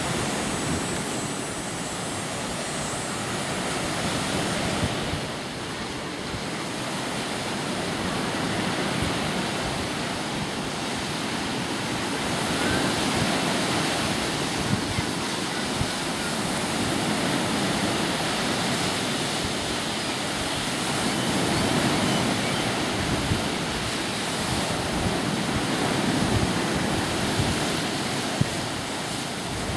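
Lake waves washing and breaking onto the shore, the surf swelling and easing every few seconds, with wind on the microphone.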